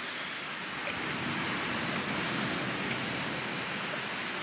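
Steady wash of ocean surf, an even hiss with no distinct strokes.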